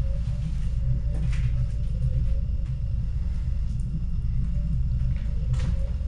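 Steady low rumble of handling and movement noise on a handheld camera being carried through rooms, with a few faint clicks over it.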